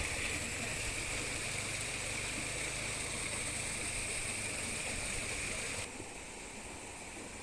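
Steady rushing of a waterfall. It drops abruptly to a quieter level about six seconds in.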